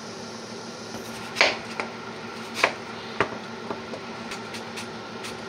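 Kitchen knife dicing a yellow onion on a cutting board: a handful of irregular knocks of the blade against the board, the loudest about a second and a half in and again past two and a half seconds.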